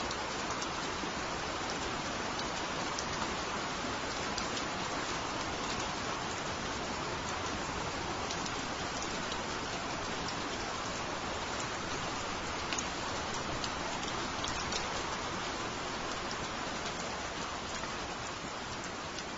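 Steady rain falling: an even hiss dotted with scattered sharp ticks of single drops.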